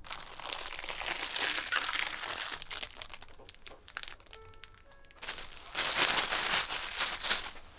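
Clear plastic wrapping around a pair of disposable terry-cloth slippers crinkling as it is handled. It comes in two loud stretches with a quieter pause in the middle.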